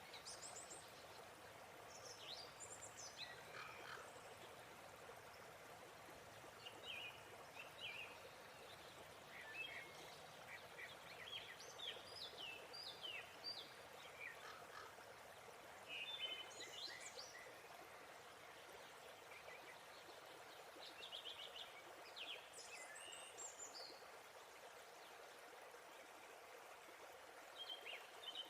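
Faint, steady rush of falling water from a waterfall, with songbirds chirping and trilling in short bursts on and off throughout.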